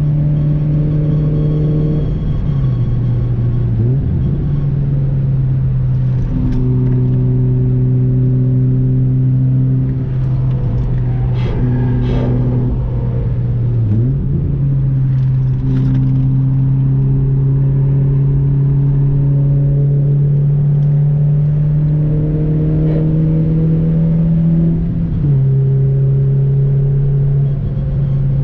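Honda CR-Z's four-cylinder engine running steadily under load. Its note climbs slowly and drops three times, as at gear changes.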